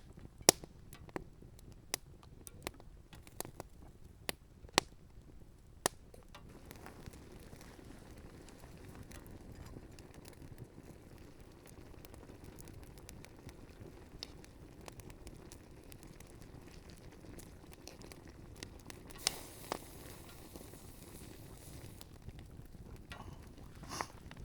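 Wood campfire crackling, with a series of sharp pops from the burning wood in the first six seconds. After that comes a steady low hiss from the fire and the pot boiling over it, with a brief louder hiss about twenty seconds in.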